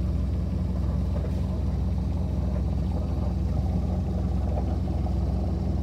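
Sailboat's engine running steadily under way: a low, even drone.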